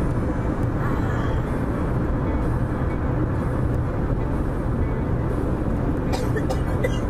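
Steady road and engine noise inside a moving car's cabin, with a few faint clicks near the end.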